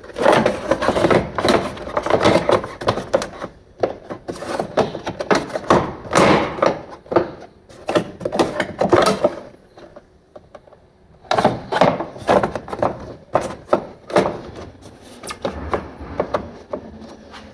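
Irregular clattering knocks and clicks of things being handled, in two long spells with a pause about ten seconds in.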